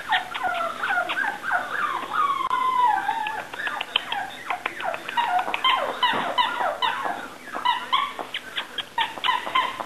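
Cocker Spaniel puppies whimpering and yipping. There are many short, high calls that mostly slide down in pitch, overlapping and coming several a second.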